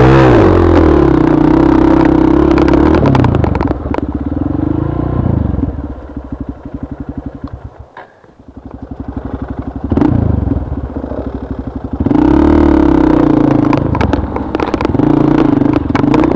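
Trail motorcycle engine running hard and revving over rough ground. About halfway through it backs off to a slow chugging idle and almost fades out, then revs back up and runs hard again for the last few seconds.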